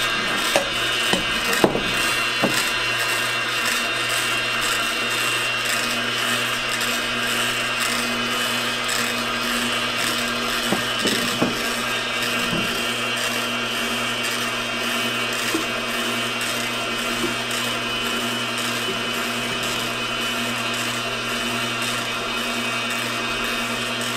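Kuvings commercial cold-press slow juicer running steadily, its auger turning slowly as it grinds and squeezes kale, carrots and apple, with a steady motor hum and a high whine. A few short knocks come in the first few seconds and again about eleven seconds in.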